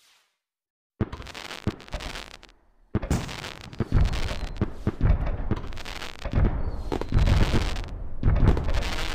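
Fireworks exploding: about a second of silence, then a few sharp bangs, and from about three seconds in a dense run of booms and crackling bursts with no pause.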